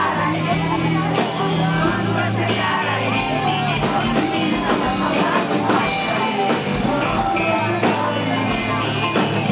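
Live band music: a male singer singing into a microphone over electric guitar, drums and percussion, with a steady beat.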